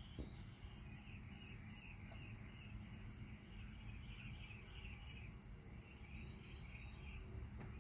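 Faint, evenly repeating cricket chirps, about two to three a second, while the car stays silent with no starter cranking.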